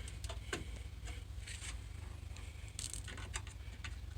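Hands working at parts inside a desktop computer case: scattered small clicks and scrapes of handling, over a low steady hum.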